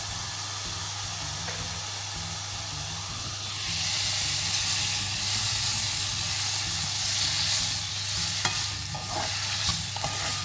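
Garlic frying in butter in a pan, with a steady sizzle. About three and a half seconds in, the sizzle grows louder as the washed shrimp go into the hot butter. Near the end a spatula clicks against the pan as the shrimp are stirred.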